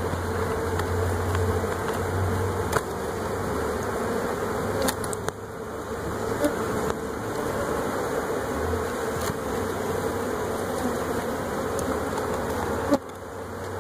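A wild honeybee colony buzzing steadily, the bees stirred up by the cutting of their combs, with a few sharp clicks.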